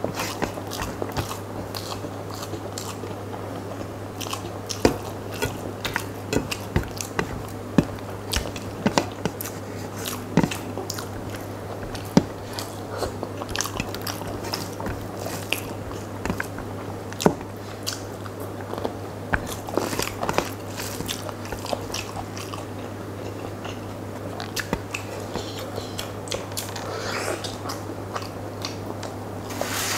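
Close-miked chewing and wet mouth sounds of eating rice with curry by hand, many short smacks and clicks, with fingers squishing and mixing rice on a steel plate. A steady low hum sits underneath.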